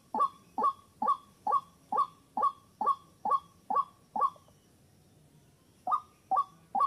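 White-breasted waterhen call, a recording played as a hunting lure: a steady run of short notes, each falling in pitch, about two a second. It breaks off for about a second and a half after some four seconds, then starts again.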